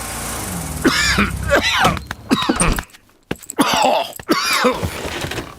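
A cartoon character's voice, ill with a cough, groaning and coughing in several short bouts.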